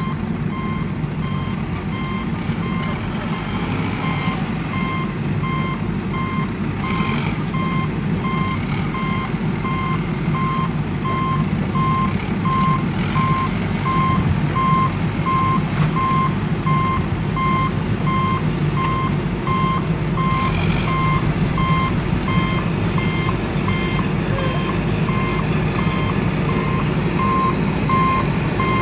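Road roller's reversing alarm beeping steadily at one pitch, with its diesel engine running as a low rumble underneath.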